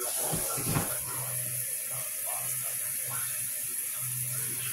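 Water running steadily from a tap, an even hiss with a low hum underneath. Two light knocks come within the first second.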